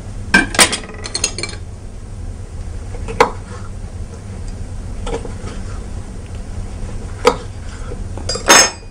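Knife and cutlery knocking and clinking on a wooden cutting board and dishes while roasted red peppers are cut, in a handful of separate sharp knocks. A cluster comes in the first second and a half, then single knocks every two seconds or so, and a louder metallic clink with a brief ring near the end.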